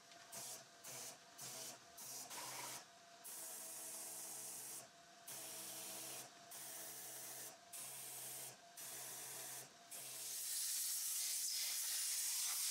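Pressure washer wand spraying water over and into an aluminium cylinder head, triggered on and off over and over: short bursts about twice a second at first, then runs of a second or more, with the pump's low hum under each run. Near the end a steadier, louder hiss takes over.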